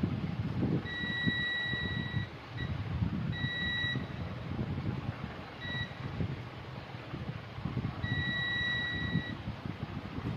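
Electronic beeps at one steady high pitch, three longer ones of about a second and two short blips, over a low uneven rumble.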